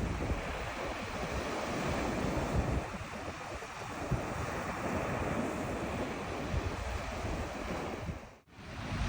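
Steady wash of surf and wind, with wind buffeting the microphone in low rumbles; the sound drops out for a moment near the end.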